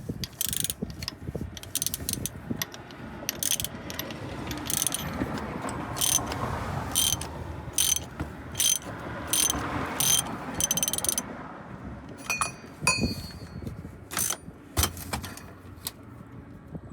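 Socket ratchet clicking in repeated short runs as it is turned back and forth, working the oil filter housing cap loose on a 2014 Toyota Tundra.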